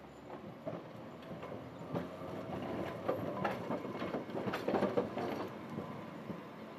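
Sapporo City Tram 3300-series streetcar passing close by, its wheels clicking and clattering over the track. It grows louder, is loudest about three to five seconds in, then fades.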